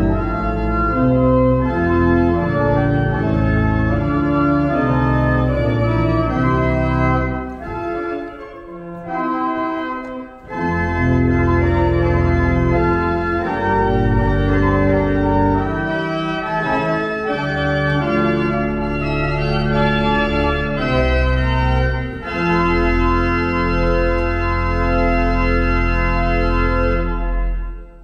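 Wegenstein pipe organ playing sustained full chords over a deep pedal bass. The texture thins briefly about eight to ten seconds in, and a final chord is released near the end.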